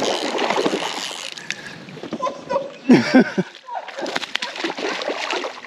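A hooked smallmouth bass thrashing and splashing at the surface of a creek while it is played on the line.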